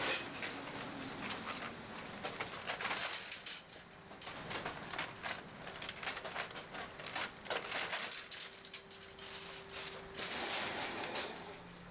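Cotton socks being slid and stripped off the flat metal sock forms of a boarding machine by hand: a run of short, irregular rustling scrapes. Near the end a plastic bag rustles as socks are stuffed into it.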